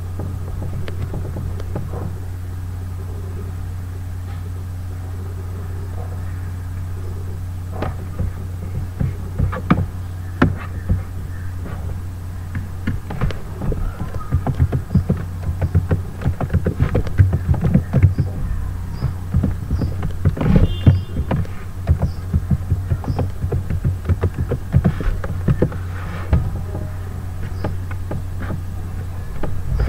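Steady low electrical hum with computer keyboard keys and mouse buttons clicking. The clicking starts about eight seconds in and grows dense in the middle, as an email address is typed in.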